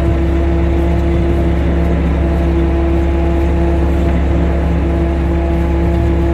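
A gillnet fishing boat's engine and net hauler running with a steady, loud drone and a constant hum as the net line is wound in on the hauler drum.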